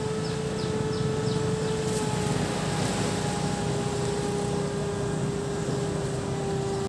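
An engine drones at a steady pitch: it rises just before and then holds, sinking slightly. Under it is a low rumble of surf and wind.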